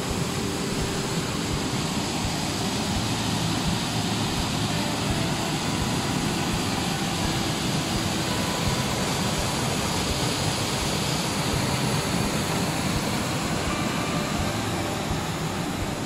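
Mountain stream rushing down a small rocky cascade: a steady, loud rush of water.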